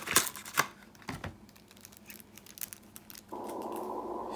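Clicks and taps of a cardboard KeyForge deck box being opened and its deck of cards handled: several sharp clicks in the first second or so, then lighter ticks. About three seconds in, a steady low hum starts suddenly.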